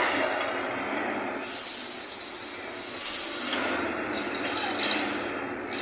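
Loaded logging truck on a ferry ramp, with a loud hiss of air from its air brakes that starts sharply about a second and a half in and cuts off about two seconds later.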